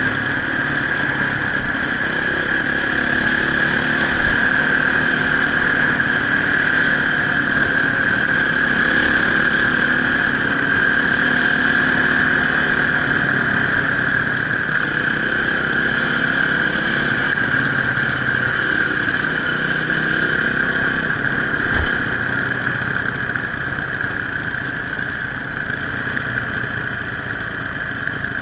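Enduro dirt bike engine running steadily, its revs drifting up and down a little.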